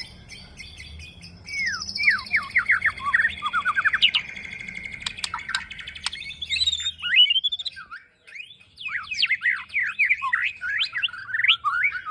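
A young white-rumped shama (murai batu) singing: fast runs of sharp, falling whistles and trills, broken by a short pause about eight seconds in.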